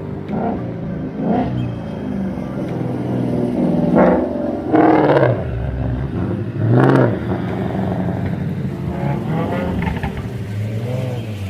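Motor vehicle engine revving in repeated swells, the loudest about four, five and seven seconds in.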